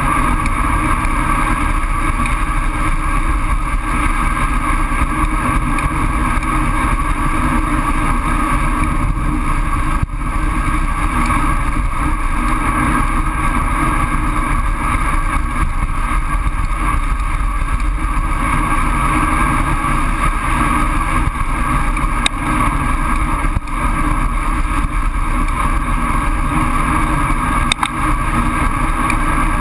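Steady, loud rush of wind on the microphone of an action camera on a road bike descending at speed, mixed with the hum of the tyres on asphalt.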